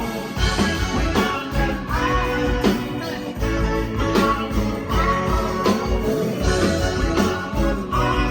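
Live rock band playing: drums keeping a steady beat, with bass, guitar and a singer's voice.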